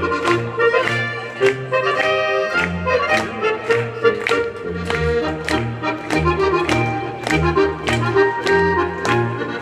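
Lively folk dance music led by an accordion, with an alternating oom-pah bass and a steady, even beat.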